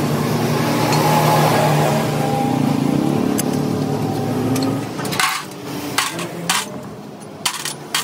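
An engine running steadily, which cuts out about five seconds in, followed by four or five sharp, separate knocks, like blows on metal.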